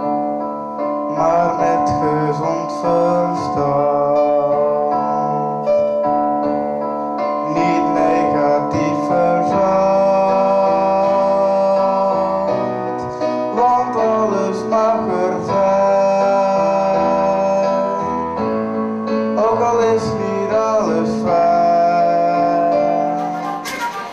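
A man singing a song in phrases over held keyboard chords.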